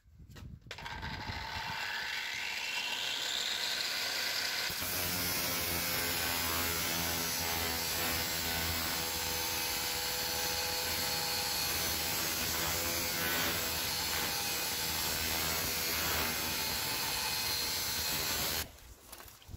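Angle grinder switched on, its whine rising over the first few seconds, then grinding a 25-degree bevel onto a hardened steel rebar-cutter blade held in a vise, a steady loud grinding that stops shortly before the end.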